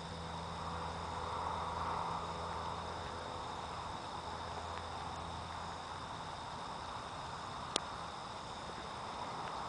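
Insects trilling steadily in a continuous high-pitched chorus over a faint hiss, with one sharp click about eight seconds in.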